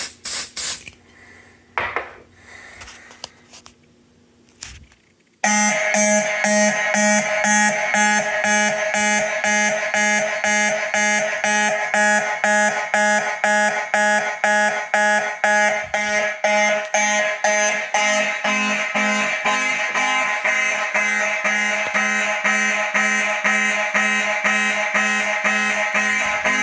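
Fire alarm system going into alarm from a smoke detector test: after a few seconds of quiet with some short handling sounds, the alarm horns start suddenly about five seconds in. They sound in a loud, even pulse of about two and a half blasts a second, several horn tones together.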